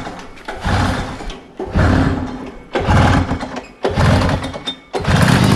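Sachs 440 twin-cylinder two-stroke snowmobile engine being pull-started: several recoil pulls about a second apart, each turning it over briefly before it dies. About five seconds in it catches and keeps running. It has weak, intermittent spark on one cylinder.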